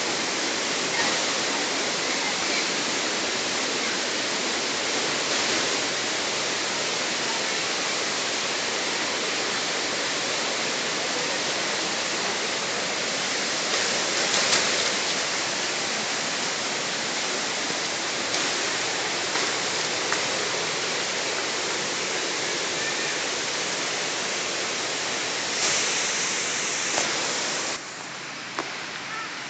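Waterfall: a steady rush of falling water. It drops somewhat quieter near the end.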